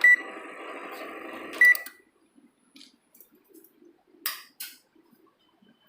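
LG microwave oven running with a steady hum and no whistling, its jammed exhaust fan disconnected. The keypad beeps at the start and again about a second and a half later, when the hum stops. Faint handling noises and two short clicks follow.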